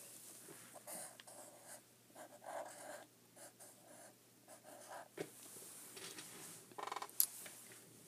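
Felt-tip marker writing on chart paper, a faint run of short strokes, with a sharper click near the end.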